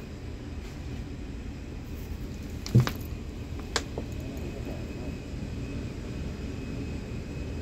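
Steady low hum of plant-room machinery, with a single thump about three seconds in and a sharp click about a second later.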